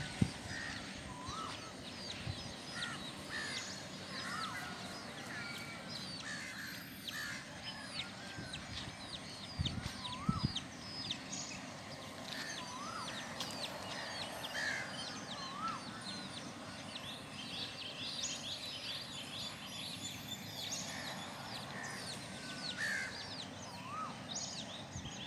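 Country chicken chicks peeping continuously, many short high chirps overlapping, with an occasional lower call among them. A couple of dull thumps about ten seconds in.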